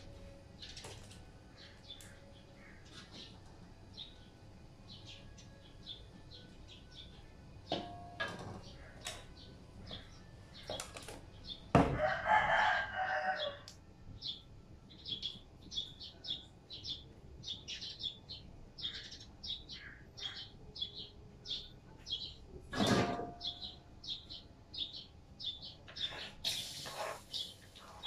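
Small birds chirping in quick, short, high notes, with a louder fowl call about twelve seconds in and a few knocks, the loudest a little before the end.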